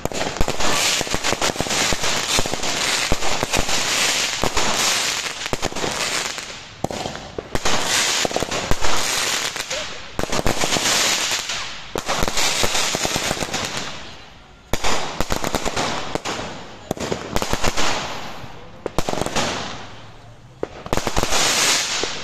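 Fireworks going off in a dense run of bangs and crackling, which comes in waves that swell and die away every couple of seconds in the second half.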